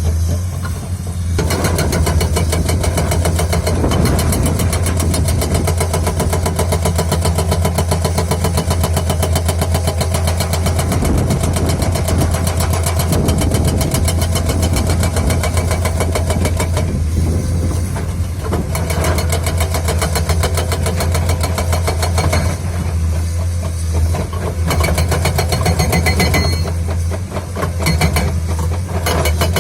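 Komatsu PC210-10 excavator's diesel engine running under load, with a JTH hydraulic breaker hammering rapidly in long spells, broken by a few short pauses where only the engine's low hum is left.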